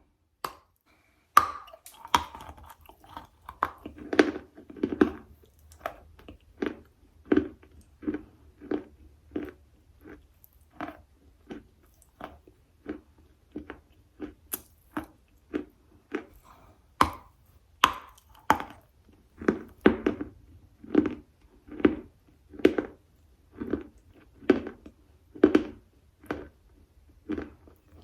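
A person chewing a chalky material with steady, regular crunching chews, about one and a half a second. A few sharper cracks cut through, one near the start and two about two-thirds of the way in.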